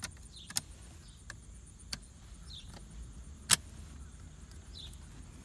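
Plastic gear shift console trim being handled and clipped back into place: a few sharp clicks and light plastic ticks, the loudest about three and a half seconds in.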